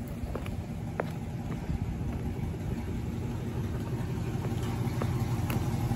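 Box truck engine idling steadily, growing a little louder toward the end, with a few sharp clicks over it.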